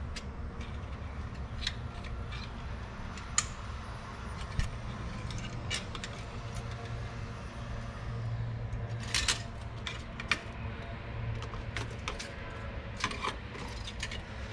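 Engine oil dipstick being handled: light metallic clicks and scrapes as it is wiped with a shop towel and slid in and out of its tube, over a low steady hum.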